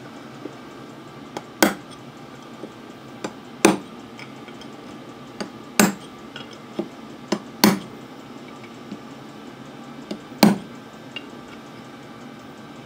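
Small ball-pein hammer striking a steel transfer punch with sharp metallic taps, a light tap then a harder blow, about five times roughly two seconds apart. The punch is set in the bolt holes of a cast-iron valve chest cover, marking hole centres onto gasket jointing material.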